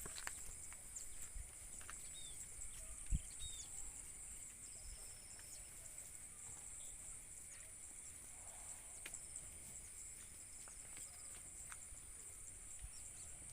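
Faint rural field ambience: a steady high-pitched insect drone with a few short bird chirps, scattered light clicks, and one sharp thump about three seconds in. No cow lows in this stretch.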